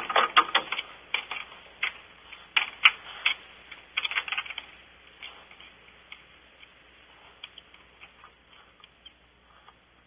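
Irregular sharp clicks and scratches of barn owls' feet on the wooden perch as one owl takes off, thick for the first few seconds and then thinning out.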